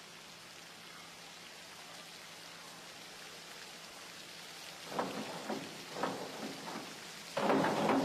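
Steady hiss of a swimming-pool hall. About five seconds in come a few sharp knocks, and near the end a sudden loud burst of splash and applause as a synchronized springboard dive is completed.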